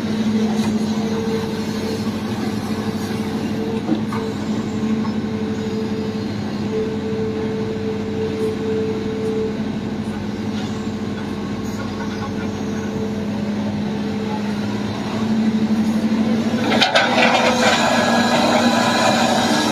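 Heavy diesel engines of an excavator and dump truck running with a steady drone. Near the end, a louder burst of scraping and clattering sets in over it.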